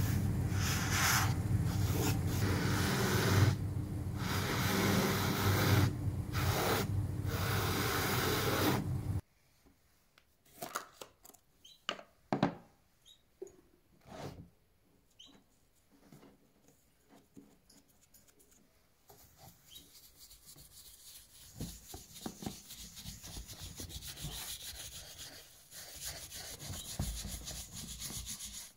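A cobbler's finishing machine runs loud and steady with its wheels spinning while a leather shoe is held against them, then cuts off suddenly about nine seconds in. After a few light knocks of a jar being handled, a sponge rubs leather soap onto a leather shoe with a soft, continuous scrubbing noise.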